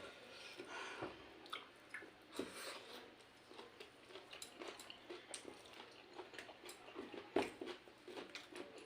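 People chewing egg chow mein noodles: faint, irregular wet mouth clicks and smacks, with one louder smack about seven and a half seconds in.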